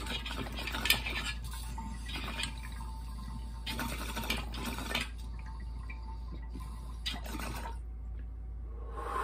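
Water bubbling and gurgling in a large glass water bubbler as a dab is drawn through it, in uneven bursts of bubbling that come and go with the pull.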